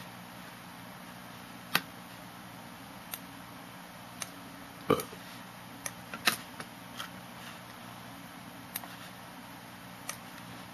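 Scattered sharp clicks at a computer, about a dozen in ten seconds, some coming in quick succession, over a steady low electrical hum.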